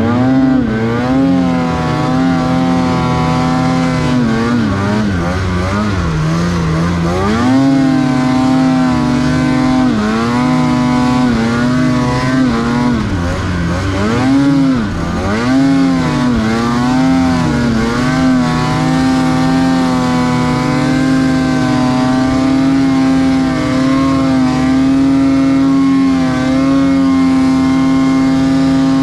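Snowmobile engine under hard throttle in deep powder, its pitch rising and falling again and again as the rider throttles on and off, then holding a steady high pitch through the last several seconds.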